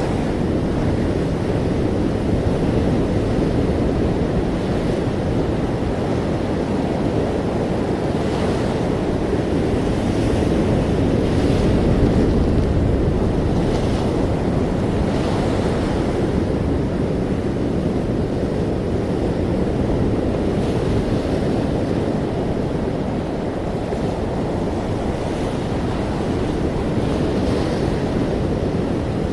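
Ocean waves breaking and washing on a shore, a steady rushing with gentle swells in level and a few brighter surges of spray.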